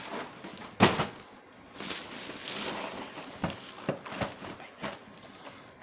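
Cardboard cereal boxes being handled and set down: a sharp knock about a second in, a stretch of rustling, then a few light taps.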